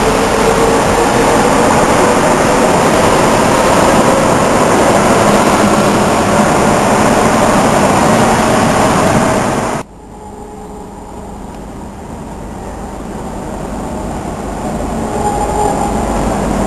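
Mexico City Metro train running alongside an underground platform, a loud steady rumble with a faint whine. It cuts off abruptly about ten seconds in, leaving quieter platform noise that swells again near the end as another train draws near.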